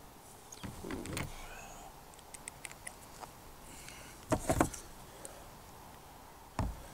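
Quiet handling noises of tools and parts: scattered light clicks and a brief rustle, with a cluster of louder knocks about four and a half seconds in and one more knock near the end.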